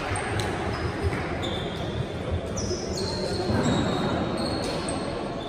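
Basketball shoes squeaking on a hardwood gym floor: several short, high squeaks over indistinct chatter, echoing in a sports hall.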